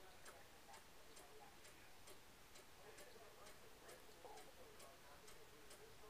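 Faint, even ticking, about two ticks a second, over near silence.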